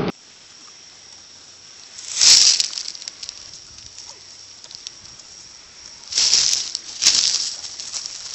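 A horse blowing out through its nostrils in three short, noisy puffs as it sniffs, over a low steady hiss.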